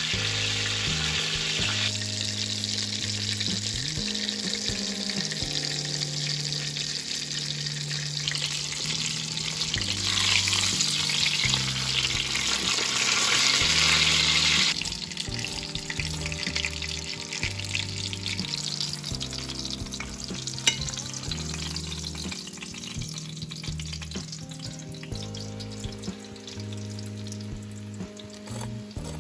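Breaded chicken fillet shallow-frying in vegetable oil in a non-stick pan: a steady sizzle that grows louder for a few seconds midway, then drops off suddenly. A single sharp click comes about twenty seconds in.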